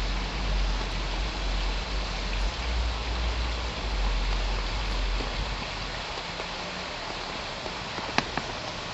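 Steady outdoor hiss with a low rumble, typical of wind on the microphone. The rumble fades about six seconds in, and a sharp click comes near the end.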